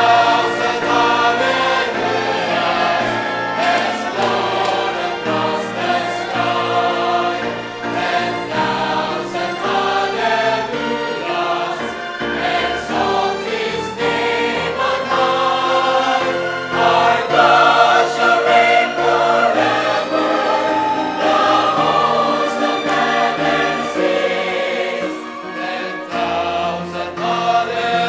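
Background music: a choir singing sustained, overlapping notes.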